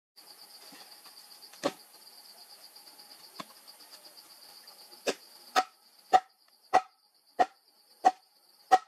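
A wooden stake is being driven into the ground with a short log used as a mallet. There are two scattered knocks, then from about five seconds in a steady run of seven sharp wooden knocks, roughly one every 0.6 seconds. A steady insect drone runs underneath.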